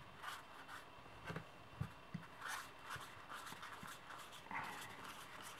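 Faint rustling and soft taps of playing cards being handled and laid down, with a few light knocks between one and two seconds in.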